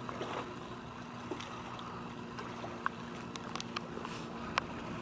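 A steady, low engine hum, as from a boat motor running slowly, under light water noise, with a few small sharp clicks in the last couple of seconds.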